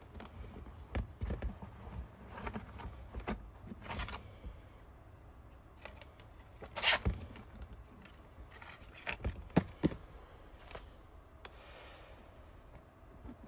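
Bootlace being threaded and pulled through the metal eyelets and hooks of a leather work boot: scattered scrapes, rustles and light clicks, the sharpest about seven seconds in and a small cluster near ten seconds.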